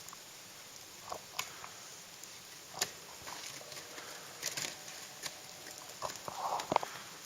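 A scattering of sharp, irregular taps and knocks over a low steady hiss, with a cluster of louder knocks near the end.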